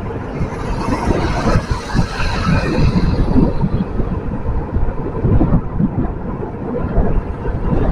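Wind buffeting the microphone of a moving rider, a continuous low rumble that rises and falls, mixed with the hum of surrounding road traffic.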